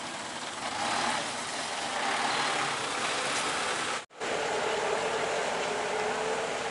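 Heavy diesel vehicle engine running steadily with a noisy, rumbling wash. The sound cuts out completely for a split second about four seconds in, then carries on with a steadier hum.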